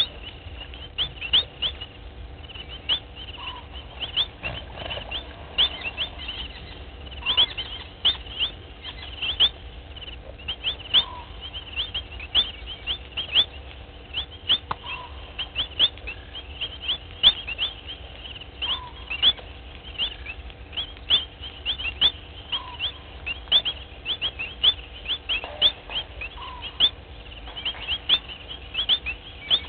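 Dusk chorus of small calling animals: many short high chirps, several a second, with a lower single note repeating about every four seconds, over a faint steady hum.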